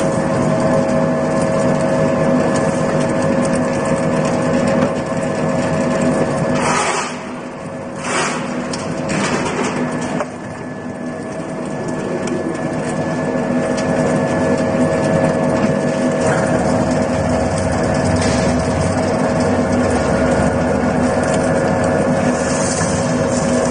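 Screw-type peanut oil expeller running with a steady mechanical drone as it presses peanuts. It goes briefly quieter about seven seconds in, with a few short rustling strokes, then builds back up.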